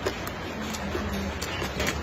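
Eating sounds: chopsticks clicking against a bowl and chewing, with a few sharp clicks near the end, over a steady low hum.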